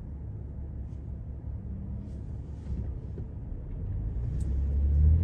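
Car engine and road noise heard from inside the cabin: a low, steady rumble that grows louder from about four seconds in as the car pulls away and accelerates.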